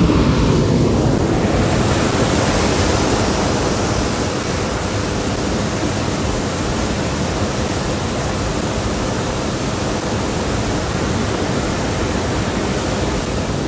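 Hot air balloon's twin propane burner firing: a loud, steady rushing noise, slightly stronger in the first few seconds.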